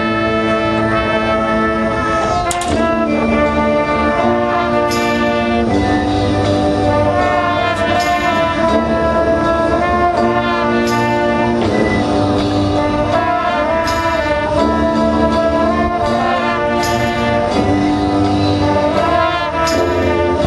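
High school marching band playing: the brass section holds loud sustained chords that change every few seconds, with a crash about every three seconds.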